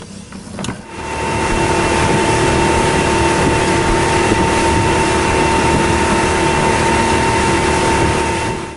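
Honda 250 V6 four-stroke outboard running the boat at speed: a loud, steady drone starting about a second in. It drops out briefly near the end.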